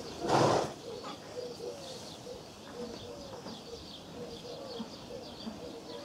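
Barn swallows chirping in short high twitters around the nest, with short low notes repeating roughly twice a second beneath them. A brief loud rush of noise sounds about half a second in.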